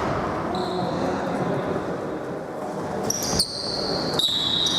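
Basketball game in a gym: a ball hits the court with sharp knocks twice in the second half, over the hall's background noise. Thin, high, drawn-out squeaks come in and out.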